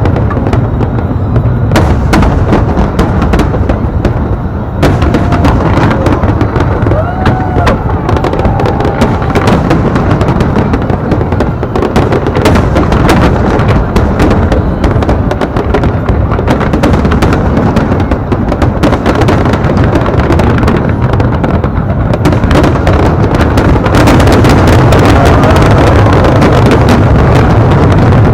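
Aerial fireworks display: a rapid, near-continuous barrage of booms and crackling bursts. It grows denser and louder near the end.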